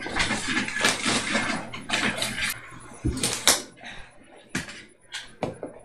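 Plastic building-set pieces clicking and knocking as they are handled and snapped together: a run of sharp, irregular clicks, the loudest a few seconds in.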